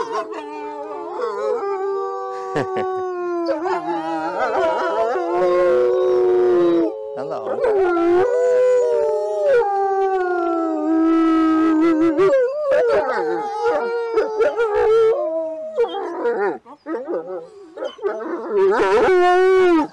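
A pack of wolves howling together: several long howls overlap at different pitches, some sliding slowly down. Over the last few seconds the howls break up into shorter, choppier calls.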